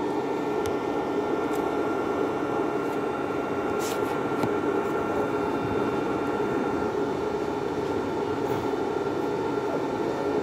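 Homemade IGBT inverter electric-fishing shocker running: a steady buzzing hum with several high, steady whine tones over it and a few sharp clicks, the loudest about four seconds in.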